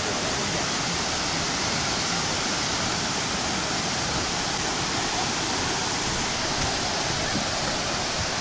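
Steady rushing of the Kravica waterfalls: many cascades of water pouring over travertine ledges into the lake, an even, unbroken roar.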